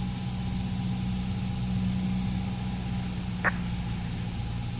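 Cabin drone of a Piper PA-28-181 Archer's four-cylinder Lycoming engine running steadily in flight on approach, with a single short blip about three and a half seconds in.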